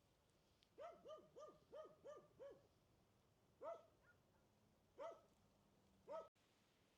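Small dog yipping: a quick run of about six short, high yips, then three single yips spaced a second or so apart.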